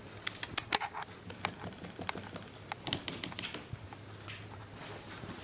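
Kittens scrabbling and playing on carpeted and plastic cat play stations: a quick run of light clicks and taps in the first second, then scattered taps and a short scratchy rustle about three seconds in.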